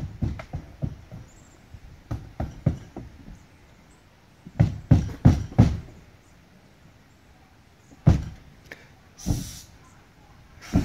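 Irregular dull knocks and thumps in several clusters, the loudest bunch about halfway through, with a short hiss-like noise near the end.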